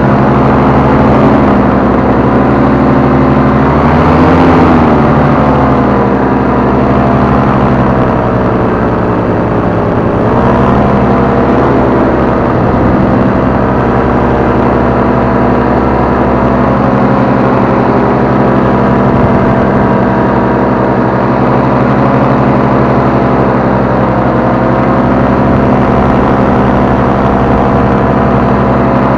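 Paramotor engine and propeller running steadily in flight. The engine note swells up and back down about four seconds in, and dips briefly again around ten seconds in.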